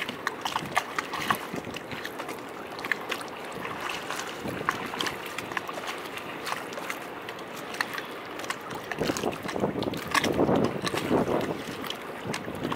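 Small waves lapping and splashing against harbour quay steps: a steady wash full of small splashes and drips, swelling louder as a bigger wave comes in about nine seconds in.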